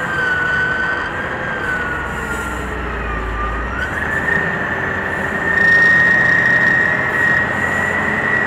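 Caterpillar twin-engine scraper driving, its engines and drivetrain running loudly with a high whine. The whine sags and then climbs about four seconds in, and the machine gets louder shortly after.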